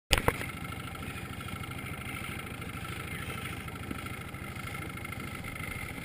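Motorboat engine running steadily at speed, a fast even chugging with a constant hum above it. Two sharp clicks at the very start.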